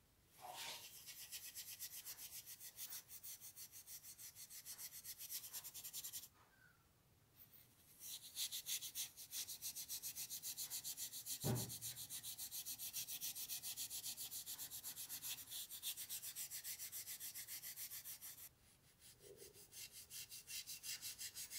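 Steel wool scrubbed back and forth on a small metal ring clamped in a vise: a quick, rhythmic hiss of about four strokes a second. It pauses about six seconds in, starts again, and goes softer near the end. A single knock comes about halfway through.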